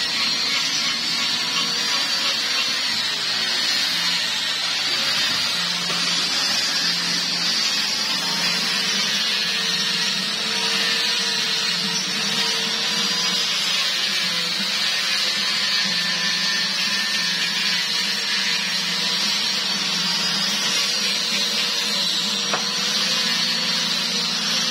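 Handheld angle grinder with a sanding disc running continuously as it sands a sonokeling (rosewood) root ashtray, its steady whine wavering slightly in pitch as the disc is pressed into the wood.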